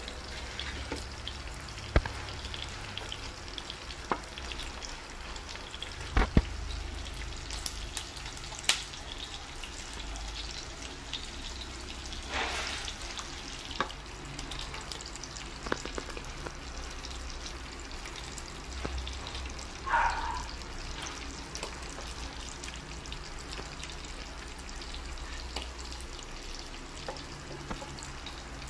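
Dried fish and dried squid frying in oil, a steady sizzle, with a dozen or so short clinks of a ladle against the pot and bowl as soup is served.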